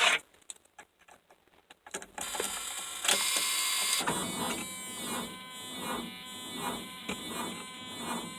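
An electric buzz from a 1984 Ford F250 with the key turned on, pulsing about once a second from about four seconds in, after a click and a few faint clicks. The engine does not crank, a no-start that is not cured by a new starter, a new solenoid and a cleaned solenoid ground.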